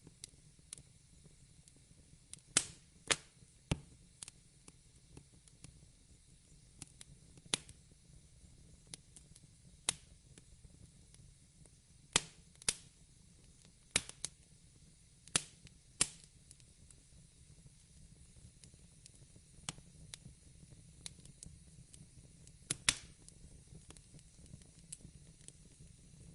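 Wood fire in a fireplace crackling: irregular sharp pops and snaps, about a dozen of them louder than the rest, over a faint low rumble from the flames.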